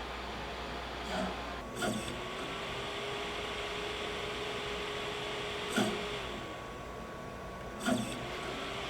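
Machinery running with a steady hum. A small motor tone starts just after a clack about two seconds in, stops about six and a half seconds in, and starts again after another clack near the end. There are four sharp mechanical clacks in all.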